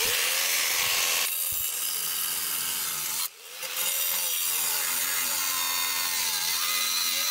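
Corded Ryobi angle grinder cutting through a steel child-seat tether bracket, a loud steady grinding with a hiss of metal on the disc. The motor pitch sags and recovers under load, and the cut pauses briefly about three seconds in before carrying on.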